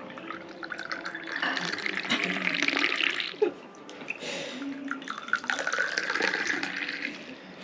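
Liquid poured into a cup in two spells, a steady splashing pour each time.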